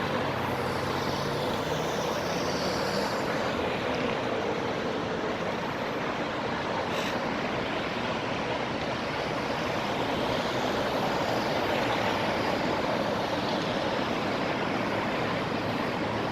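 Steady wash of freeway traffic noise, with a faint low engine hum from a passing vehicle in the first few seconds.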